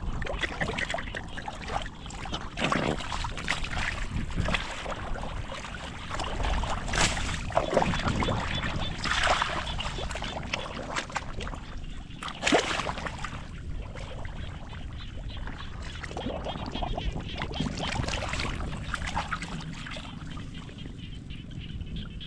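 Shallow muddy water sloshing and splashing, with a few louder splashes spread through, the loudest about twelve seconds in.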